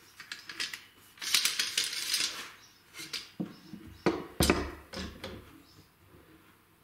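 Clamps and wooden pieces being handled while a glued-up workpiece is clamped together: scattered clicks, a dense run of rattling clicks a little after a second in, then knocks and a heavy thud about four seconds in.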